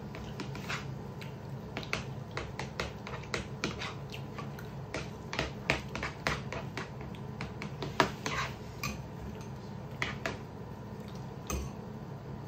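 Close-up eating sounds of people eating salted rice with yogurt: chewing and lip smacking, heard as many irregular sharp wet clicks, one louder about eight seconds in, over a steady low hum.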